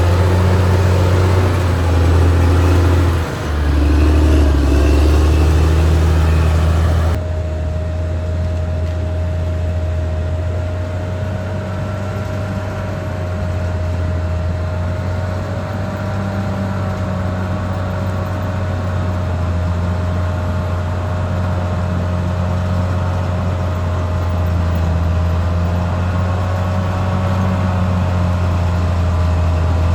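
Caterpillar D6R XL bulldozer's diesel engine running under load with a steady low drone. The sound changes abruptly about seven seconds in, and from there a steady high whine runs over the engine.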